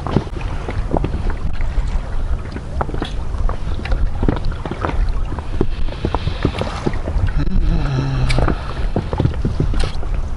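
Small waves slapping against the hull of an inflatable PVC boat, making irregular short knocks and splashes over a steady wind rumble on the microphone.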